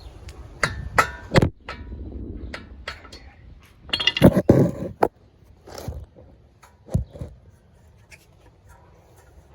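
Irregular metal clinks and knocks of hand tools and suspension parts being handled during a CV axle job: a few sharp strikes in the first second and a half, a louder cluster of clanks about four to five seconds in, and a couple more around seven seconds.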